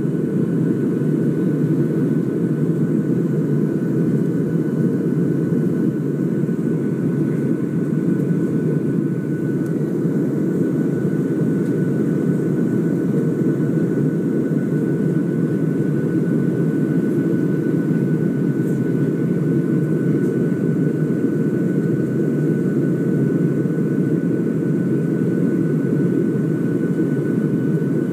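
Jet airliner cabin noise during the climb: a steady low rumble of engines and airflow, with a faint steady whine running over it.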